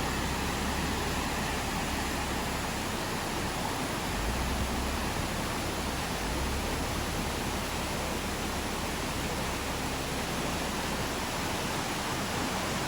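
Steady rushing of a fast-flowing, rain-swollen stream, an even noise with no breaks.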